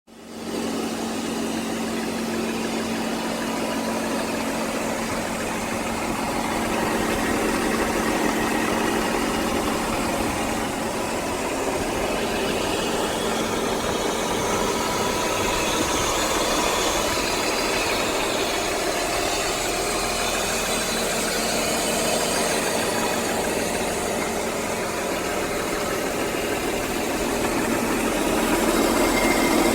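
BMW E39 528i's 2.8-litre straight-six engine running steadily at idle, after a loose fuel injector that had been ticking against the fuel rail was re-seated.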